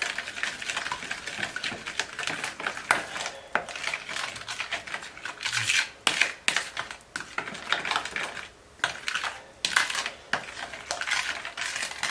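A utensil stirring a thick, wet pumpkin pie filling in a mixing bowl, with repeated irregular clicks and scrapes against the bowl, pausing briefly twice in the second half.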